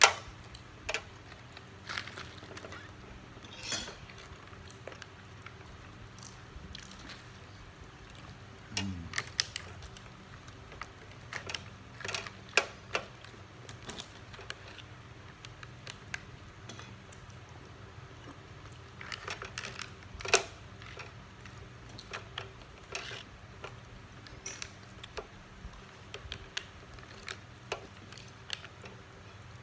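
Metal spoon and fork clinking and scraping against a thin plastic takeaway box as the last of the siomay sauce is scooped up. The taps and scrapes come at irregular intervals, with the sharpest clicks right at the start and about twenty seconds in. A short, low sound falling in pitch comes about nine seconds in.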